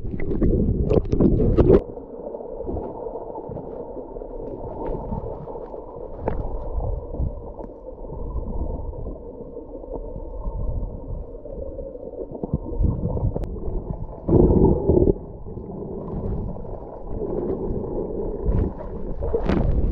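Muffled underwater water noise heard through a submerged camera: a steady dull rumble, with splashes and knocks in the first two seconds and a louder rush of water about fourteen seconds in.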